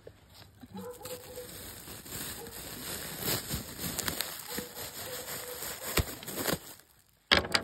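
Packaging rustling and crinkling as potted plants are handled and unpacked from a parcel, with scattered clicks and knocks. It drops almost to silence shortly before the end, then a loud sudden crackle.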